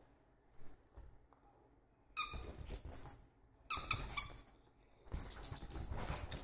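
Small Chihuahua-type dog yapping in three high-pitched bursts while excited at play.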